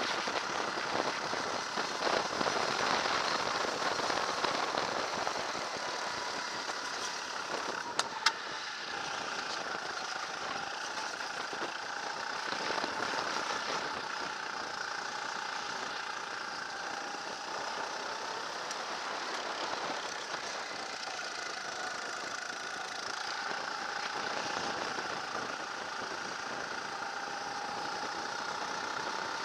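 Sodikart RT8 rental kart's single-cylinder four-stroke engine running at speed, its pitch wavering up and down through the corners. A single sharp click sounds about eight seconds in.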